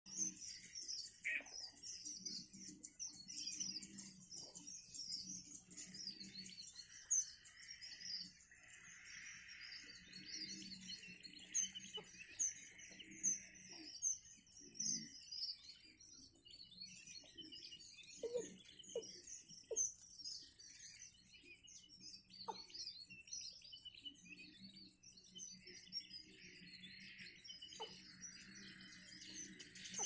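Outdoor chorus of wild birds and insects: a steady, high-pitched trill with many rapid, high chirps over it, and a few brief lower calls about two-thirds of the way through.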